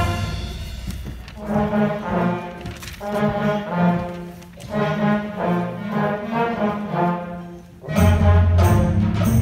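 School concert band of woodwinds, brass and percussion playing. A loud full-band passage fades out, a quieter brass-led section of short phrases follows, and about eight seconds in the full band comes back in loud with drums and cymbals.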